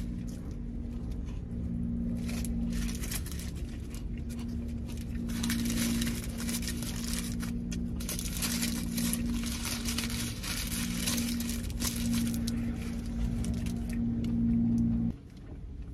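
Paper wrapper of a burrito crinkling and rustling as it is handled and peeled back, over a steady low hum that cuts off suddenly near the end.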